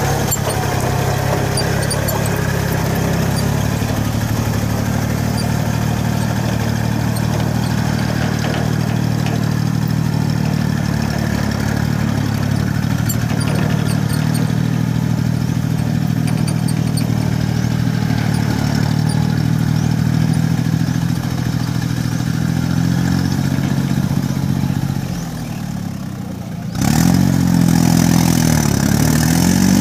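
Yanmar C30R crawler carrier's diesel engine running steadily as the tracked dumper drives across a field. Near the end it drops briefly in level, then comes back louder with its pitch dipping and rising again.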